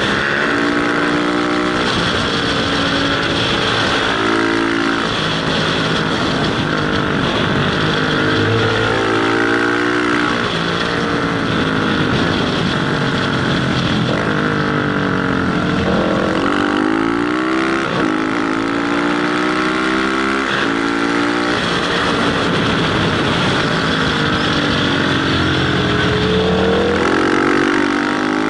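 Motorcycle engine at riding speed, its revs rising and falling again and again through the bends and gear changes, over a steady rush of wind on the microphone.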